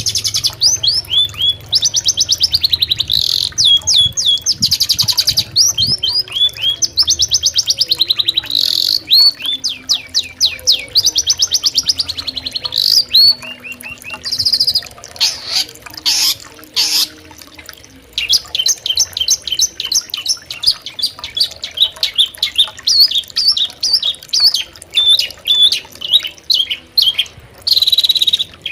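Long-tailed shrike (cendet) singing: loud, fast runs of sharp repeated chirps and rapid chattering trills, broken by a short looser stretch of scattered calls about halfway through.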